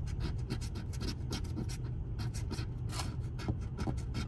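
Edge of a coin scratching the coating off a scratch-off lottery ticket in quick short strokes, about seven a second, over a steady low hum.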